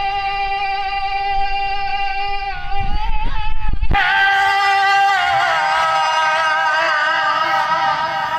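A man singing a naat unaccompanied into a microphone, drawing out long held notes. A low rumble runs under the first half and stops at an abrupt break about four seconds in, after which a new held note starts and slides down about a second later.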